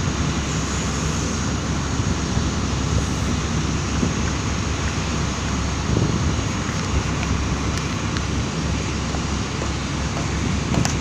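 Backhoe loader's diesel engine running steadily at work.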